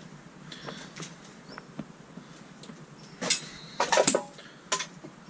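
Footsteps clicking and clinking on debris littering the floor of a derelict locomotive's interior, with a louder burst of clatter about three to four seconds in.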